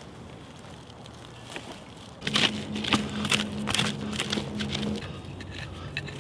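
Wooden digging stick jabbing and scraping into clay soil: a string of sharp strikes starting a little over two seconds in, over a steady low hum that stops about five seconds in.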